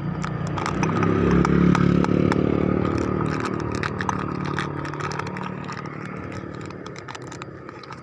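A motor running, growing loudest about two seconds in and then slowly fading, with light clicks over it.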